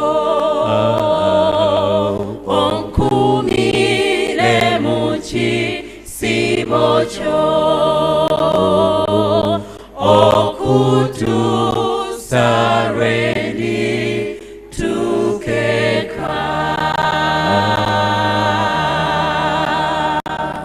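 Mixed church choir singing in harmony, women's voices over steady low men's parts; the song stops abruptly near the end.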